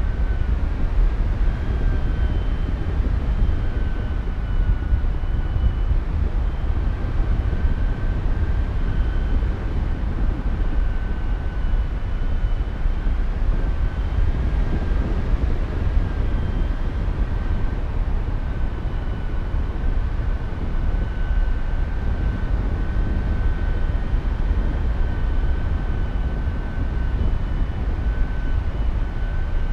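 Wind rushing over the microphone of a paraglider in flight, a steady loud rumble. A faint high tone holds throughout, wavering slightly in pitch and breaking off briefly now and then.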